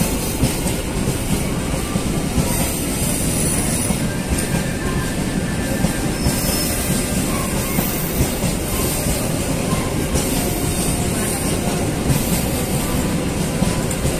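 A freight train of flat wagons rolling steadily past, its wheels rumbling on the rails, with faint wheel squeal now and then.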